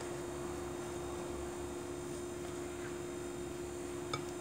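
Wire whisk stirring dry semolina and flour in a metal bowl, a soft scraping rustle over a steady hum. A light click about four seconds in.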